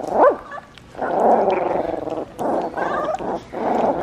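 Young chocolate Labrador puppies feeding from a pan of puppy mush: a short rising-and-falling whimper at the start, then a run of rough little growls and grunts mixed with wet slurping as they eat.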